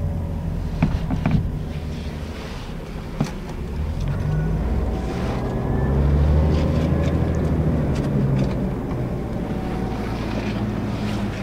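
Scania L94UB city bus's diesel engine and ZF automatic transmission running, heard from inside the passenger cabin. The engine pulls louder about halfway through, then eases off, with a few short rattles from the bodywork early on.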